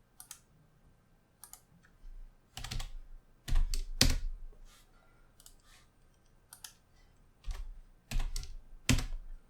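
Irregular, spaced-out keystrokes on a computer keyboard, a few of them heavier.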